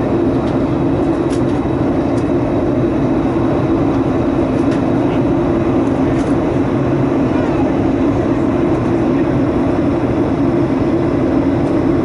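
Steady in-flight noise inside a Boeing 737-800 cockpit: a constant rush of airflow and engine drone with a strong low hum, and a few faint clicks.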